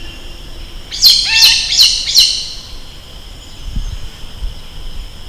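A bird calling a quick series of five sharp, high notes, each sweeping downward, over a steady high drone in the background.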